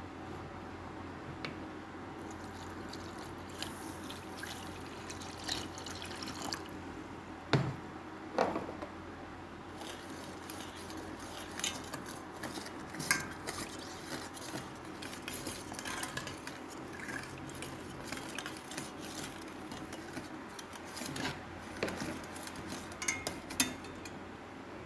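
A metal spoon stirring sugar, sweetened condensed milk and water in a stainless steel pot, with irregular clinks and scrapes against the pot's sides and liquid swishing. The louder clinks come a little past a third of the way in, about halfway, and near the end.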